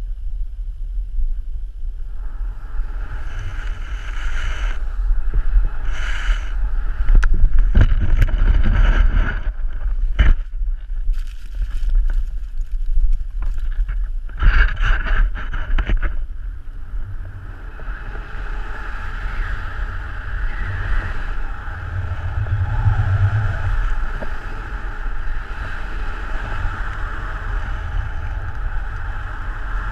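Wind rushing over an action camera's microphone as a snowboard carves through deep powder, a steady rumble and hiss of sliding snow that surges louder several times.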